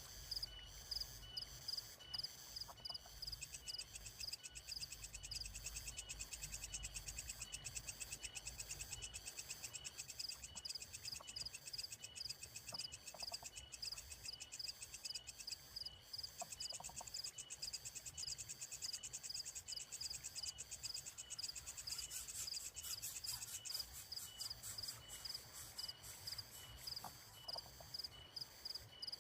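Night chorus of small calling animals such as crickets and frogs: a steady rhythm of high chirps, with a fine buzzing trill over it that comes in a few seconds in, drops out around the middle, and returns briefly near the end.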